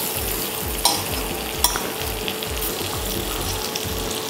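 Butter melting and sizzling in a hot aluminium kadai, a steady frying hiss. Two sharp taps sound against the pan, about one and one and a half seconds in.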